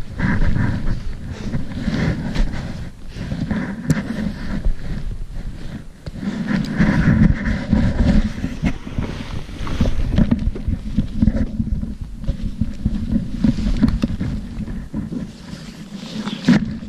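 Loud, uneven rustling and buffeting on the microphone of a hand-carried camera as a hiker walks through snow: jacket fabric and branches brushing the camera, wind on the microphone, and crunching steps with trekking poles.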